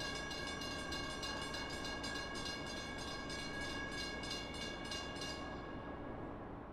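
Train bell ringing steadily at about three strikes a second over a low rumble. The strikes stop about five seconds in and the bell's ring fades away.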